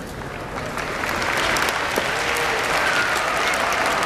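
Crowd in the stands applauding, the clapping swelling about a second in and carrying on.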